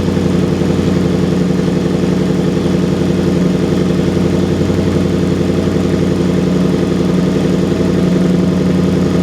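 Supercharged 5.0-litre V8 of a Land Rover Defender 110 idling steadily after a cold start, through its valved sport exhaust in its louder dynamic mode.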